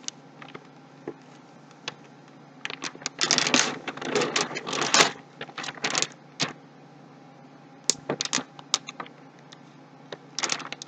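Computer motherboard packaging being handled: irregular clusters of clicks, taps and crinkling rustles, loudest a few seconds in and again near the end.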